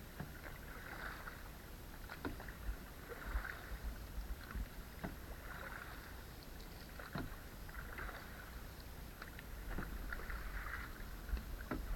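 Canoe paddling: paddle strokes swishing through the water about every two to two and a half seconds, with small clicks and knocks in between, over a low wind rumble on the microphone.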